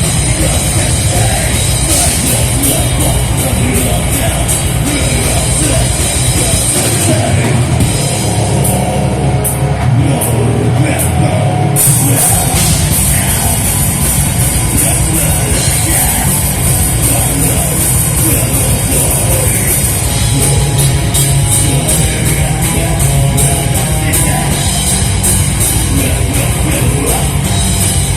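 A rock band playing live, with a full drum kit and cymbals. About seven seconds in, the bottom end drops away for about five seconds, then the full band comes back in.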